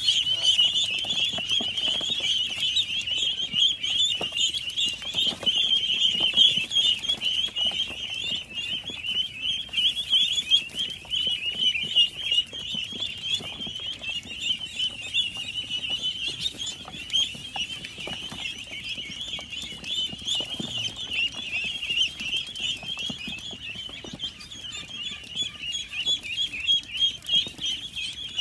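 A flock of young ducks peeping all at once: a dense, unbroken chorus of many high-pitched calls.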